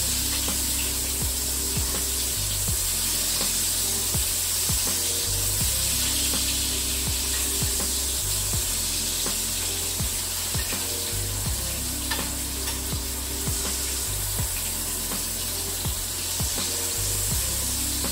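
Rump steak sizzling in hot butter in a frying pan as it is basted, a spoon scooping the butter over it with light clicks against the pan. Background music with a repeating bass line plays underneath.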